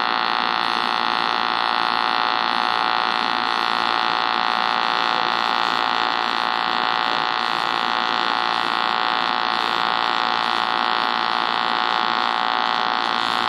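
AC TIG welding arc on aluminum, running steadily with the alternating-current frequency sound. The inverter is set somewhere between 60 and 80 hertz.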